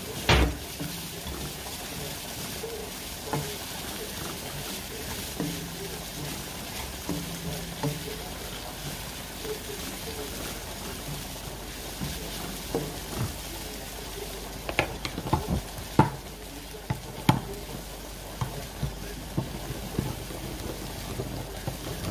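Onions and meat sizzling in a wok while a spatula stirs them. Sharp knocks of the spatula against the pan come several times, most of them about two-thirds of the way through.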